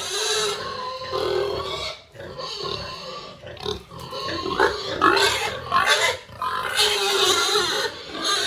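Several pigs grunting and squealing over each other, with a brief lull about two seconds in and sharper, louder squeals a little past the middle.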